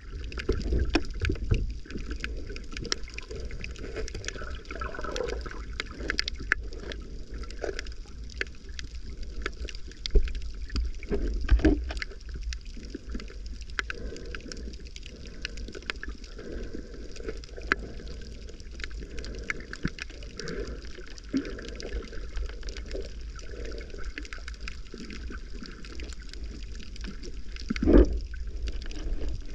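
Water moving and sloshing around a submerged camera, muffled as heard underwater, with many scattered faint clicks and crackles. A few louder swishing surges come twice near the middle and once near the end.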